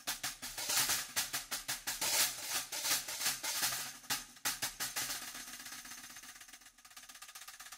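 14-inch Vulcan Dark Master hi-hat played with bare hands and fingers in fast taps. After about five seconds it fades to quiet, sparse taps.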